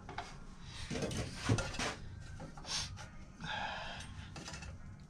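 Metal parts being handled and adjusted at a bandsaw: a few knocks and clinks, then a short scrape about three and a half seconds in.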